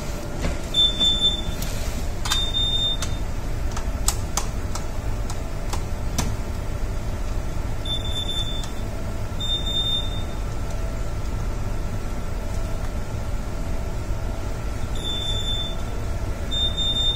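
Electronic equipment alarm on a ship's bridge, beeping high in pairs: two short beeps about a second and a half apart, the pair coming again roughly every seven seconds. A steady low hum runs underneath, with a few light clicks in the first seconds as wires are handled.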